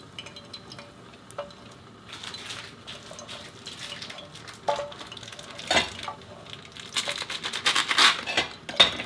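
Garlic cloves frying gently in olive oil in a pan, a soft sizzle, with a few clinks and knocks of pots and utensils. Near the end a packet of dry spaghetti is opened with a burst of crinkly rustling.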